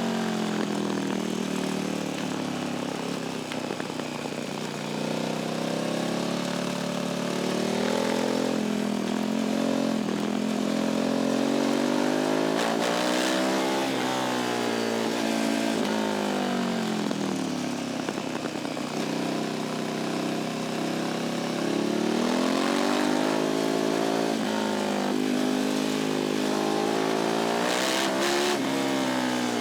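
Sport motorcycle engine and exhaust under way, picked up at the tail of the bike. The engine pitch climbs and drops again and again as the rider accelerates and eases off.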